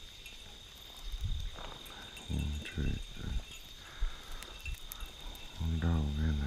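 Crickets chirring steadily in a high, even trill, with a few low thumps in the first half and a low, drawn-out voice near the end.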